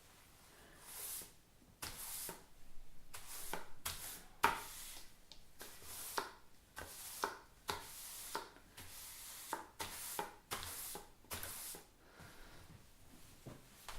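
Broom sweeping: a series of brisk bristle strokes scraping across a floor, about one or two a second, with one sharper knock about four and a half seconds in, easing off near the end.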